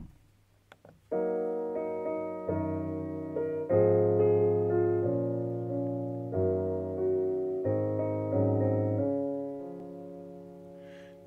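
Piano playing the slow introduction to a hymn in held chords, starting about a second in and fading away near the end.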